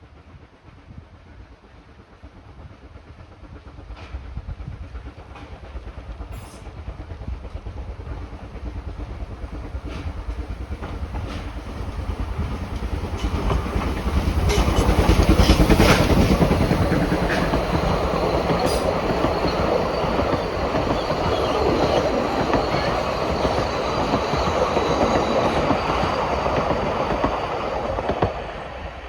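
Vale of Rheidol narrow-gauge steam train running past, with wheels clacking over the rail joints. It grows louder to a peak about halfway through, stays loud while the carriages go by, and falls away sharply near the end.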